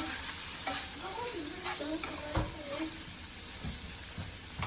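Diced chicken breast sizzling in butter in a hot skillet, with a few sharp knocks from a utensil stirring it against the pan.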